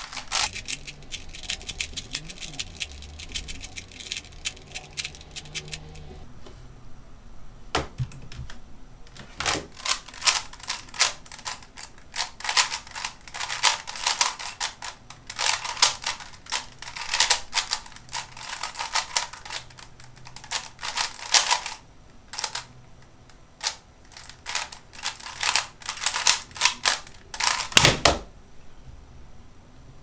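Plastic DIY Type C 3x3 speedcube clicking as its layers are turned: a dense, very fast run of clicks for the first six seconds while it is scrambled (sped up), then bursts of quick turns through a solve of about eighteen seconds. Near the end a thump as the hands slap down on the speedcubing timer to stop it.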